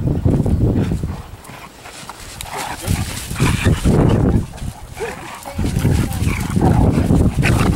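Dogs giving short barks and whines over a heavy low wind rumble on the microphone. The rumble drops away about a second in and comes back after about five and a half seconds.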